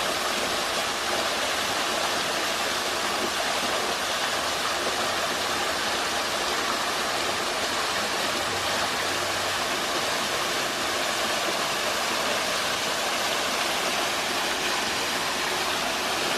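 Small waterfall splashing steadily, with the creek's running water.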